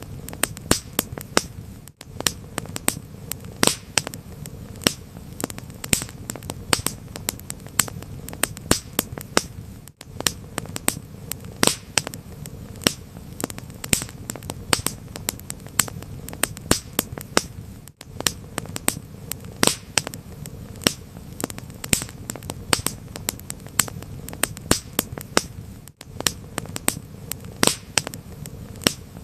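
Wood fire crackling: dense, irregular sharp pops and snaps over a low, steady rumble.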